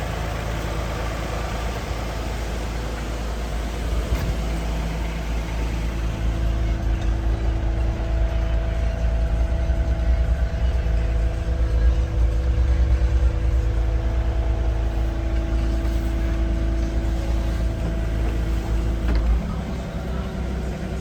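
JCB 50Z-2 mini excavator's diesel engine running steadily, with a steady whine joining about six seconds in. The sound grows louder through the middle and drops back, with the whine ending, shortly before the end.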